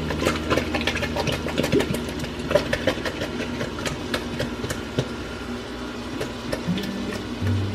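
A can opener working around a can of diced tomatoes: an uneven run of clicks and scrapes over a low steady hum.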